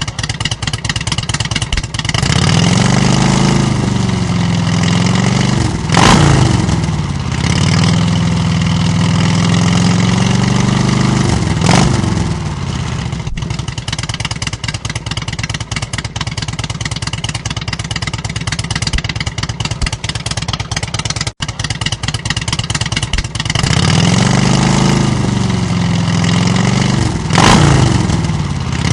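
An engine running with a fast, even firing beat, revved up and down in slow swells three times (about 6, 12 and 27 seconds in) and idling more steadily in between.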